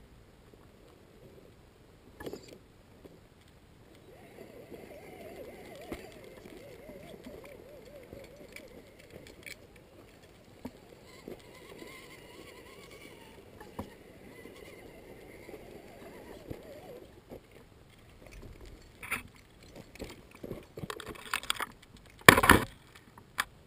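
Electric motor and gear drive of a small RC rock crawler whining as it creeps over rocks, the pitch wavering up and down with the throttle. Near the end come rustles and knocks close to the microphone, the loudest a sharp burst about 22 seconds in.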